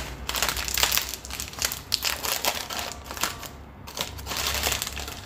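Plastic snack packet crinkling in a dense run of crackles as it is handled and opened, with a brief lull about three and a half seconds in.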